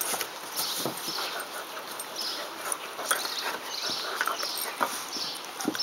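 A black Lab puppy and a bloodhound play-wrestling on a wooden deck: brief, scattered small dog vocal sounds with scuffles and short knocks at irregular moments.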